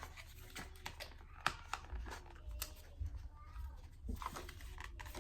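A small cardboard box being worked open by hand: scattered faint clicks, taps and scrapes of the packaging as the fingers pry at it.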